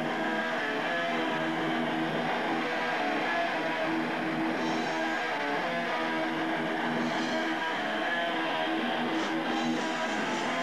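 Hardcore punk music with strummed electric guitar, a steady wall of sound that is thin, with very little bass.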